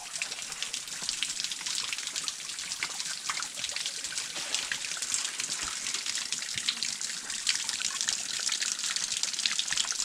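Water from a natural spring trickling and splashing steadily, with many small splashes.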